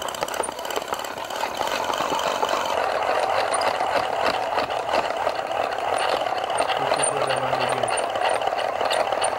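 Old hand-cranked telephone magneto generator being turned fast: a steady whirring gear rattle that gets louder over the first few seconds as it spins up, while it lights a small bulb.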